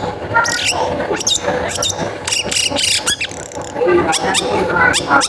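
Long-tailed shrike (cendet) singing a fast, varied run of sharp chirps and steeply sweeping notes, several a second, busier in the second half.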